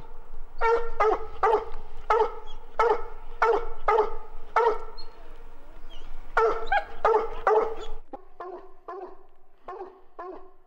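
Hunting dog barking repeatedly up at a treed mountain lion, about one to two barks a second, the barks growing fainter after about eight seconds.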